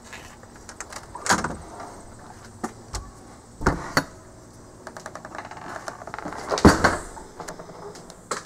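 Front door being opened and shut: a series of latch clicks and knocks, the loudest about two-thirds of the way through.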